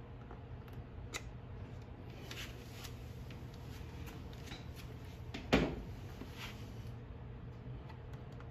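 Handling noise around a hot-staple plastic welder and an ATV's plastic body panel: light clicks and rustles, with one sharp knock about five and a half seconds in, over a low steady hum.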